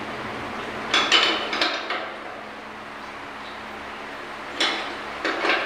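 Metal clinking and rattling during pipe-gasket work at a chain hoist: a quick cluster of sharp clinks about a second in, then a couple more near the end.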